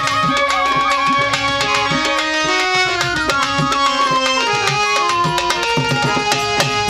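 Instrumental interlude of Bengali baul folk music: hand drums beating a fast rhythm under a sliding violin melody that glides downward midway.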